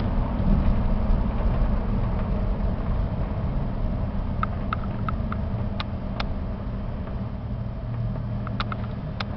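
Steady low engine and road rumble inside the cab of a 1994 GMC 3500 box truck cruising at highway speed. A few light, sharp ticks or rattles come through about halfway through and again near the end.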